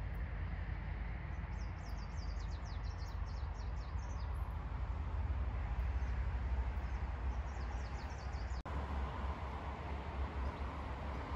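Wind buffeting the microphone with a steady low rumble, while a small songbird sings two runs of rapid, high chirping trills.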